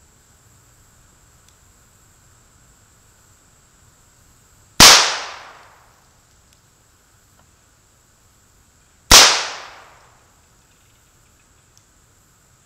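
Two shots from an H&R 926 .22 LR revolver, about four seconds apart, each a sharp crack that trails off over about a second.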